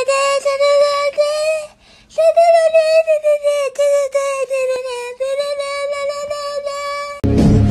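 One long, high held vocal note, nearly steady in pitch, with a short break about a second and a half in and an abrupt stop near the end.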